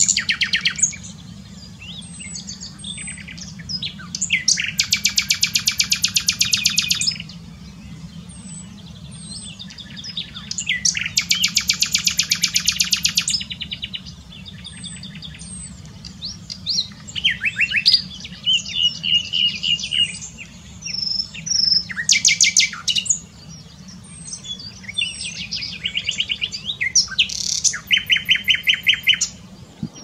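Common nightingale singing its varied song. Several loud phrases of fast, rapidly repeated notes, each two to three seconds long, alternate with shorter whistles and chattering notes.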